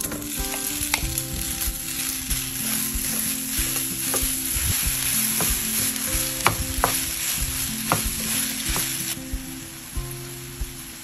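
Ground sausage sizzling as it browns in a hot frying pan, with sharp clicks of metal tongs against the pan as the meat is broken up and stirred. Soft acoustic guitar music plays underneath.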